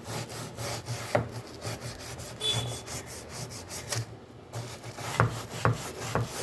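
A stiff cleaning brush scrubbing a refrigerator part in rapid back-and-forth strokes, about four a second, working greasy grime loose.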